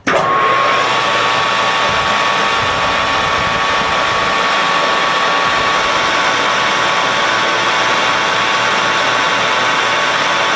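Metal lathe switched on and running steadily with its chuck spinning: a loud, even mechanical running noise with a steady high tone from the drive.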